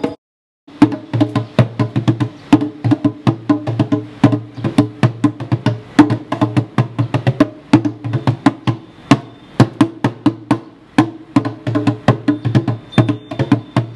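Djembe played by hand in a fast, dense rhythm: sharp, ringing slaps and tones over deep bass strokes. It stops briefly just after the start, then carries on without a break.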